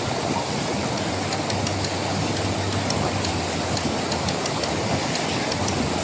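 Steady rush of a mountain stream running high after rain, white water pouring over a small weir into a pool, with a few faint ticks of splashing.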